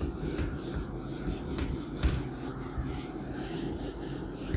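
A board duster wiped back and forth across a whiteboard, erasing marker writing: continuous rubbing with a few light knocks.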